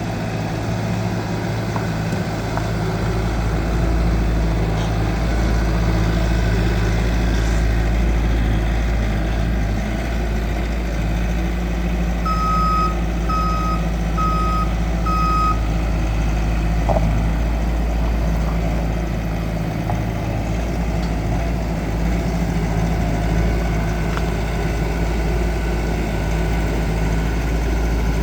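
Bobcat S570 skid steer's diesel engine running steadily. About halfway through, its backup alarm beeps four times, about a second apart, as the machine reverses.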